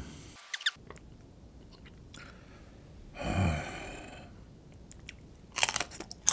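Crisp crunches of a raw green chili pepper bitten into with mint chocolate ice cream on it: a quick run of sharp crunches near the end. Before that comes a short, falling hum from the eater's throat.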